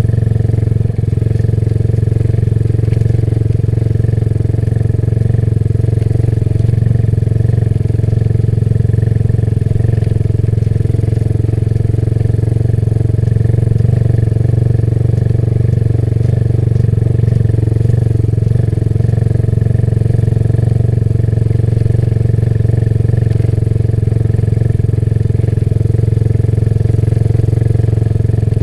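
Motorcycle engine running at a steady cruise: a steady low drone with little change in pitch.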